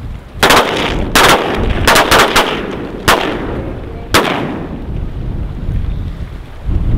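A volley of about eight shotgun shots in roughly four seconds, some less than a quarter second apart, so more than one gun is firing: hunters shooting at ducks coming over the decoys. Each shot rings on briefly.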